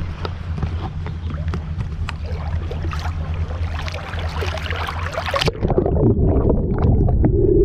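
Water splashing and sloshing close to the microphone over a steady low rumble. About five and a half seconds in it cuts abruptly to a muffled underwater rumble, the high sounds gone, as the camera goes under the surface while snorkelling.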